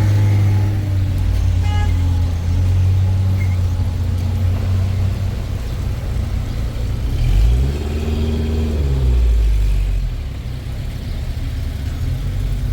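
A motor vehicle's engine running, its pitch rising as it speeds up right at the start and again about seven seconds in, each time levelling off and then dropping back.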